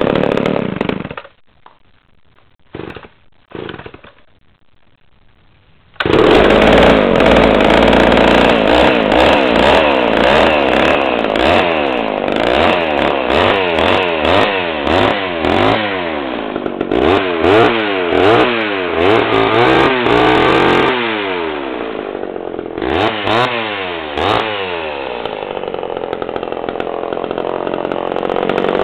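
Homelite Super XL two-stroke chainsaw running, then dying away about a second in, with a few brief bursts of sound during the lull. It starts again about six seconds in and is revved up and down over and over, the pitch rising and falling, before settling to a steadier idle near the end.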